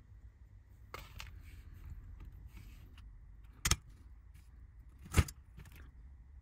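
Small metallic clicks and the rustle of thin wires being handled during soldering work. Two sharp clicks stand out, about three and a half and five seconds in; the louder second one comes as the soldering iron is put back in its metal stand.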